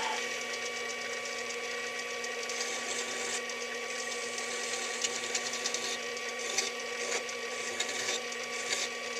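Small metal lathe running, its motor and gears giving a steady whine, while a tool bit takes a light cleanup cut on a small metal workpiece, with scratchy cutting noise that comes and goes.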